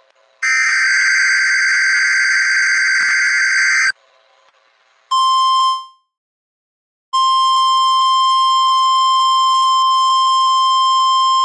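Emergency Alert System SAME header: a loud, warbling digital data burst lasting about three and a half seconds. After a brief tone blip and a pause comes the steady single-pitch NOAA Weather Radio alert tone, sounding the start of a severe thunderstorm watch broadcast.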